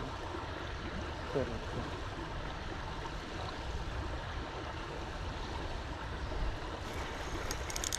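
Steady rushing of fast-flowing river current, with a few light clicks near the end.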